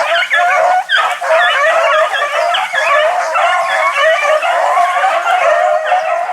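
Pack of beagles baying in full cry without a break, many voices overlapping as they run a swamp rabbit on its trail.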